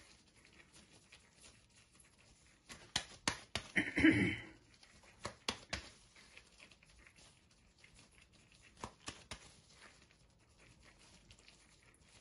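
Gloved hands patting and pressing a soft chicken-and-lentil kebab patty into shape: quiet slaps and plastic-glove rustles in a few short clusters. A brief, louder noise comes about four seconds in.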